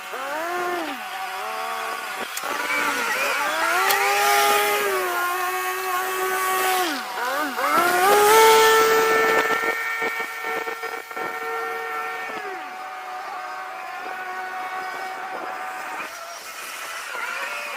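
Skid steer's engine and hydraulics working under load, the pitch repeatedly sagging and climbing back as the machine pushes and grades, held steady and higher for a few seconds in the middle.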